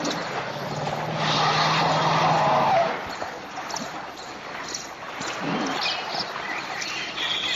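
An elephant giving a harsh, screeching call about a second in that lasts roughly two seconds, followed by quieter scattered sounds.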